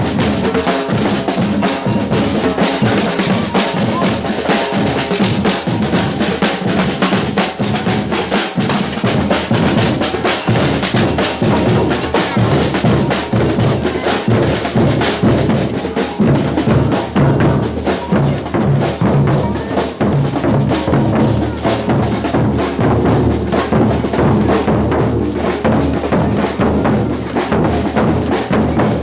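Batucada samba percussion ensemble playing a loud, continuous groove: deep surdo bass drums under snare drums and other hand percussion.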